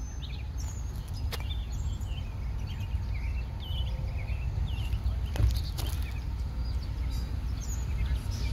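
Small birds chirping in short high calls over a steady low rumble, with a few sharp clicks, the loudest about five and a half seconds in.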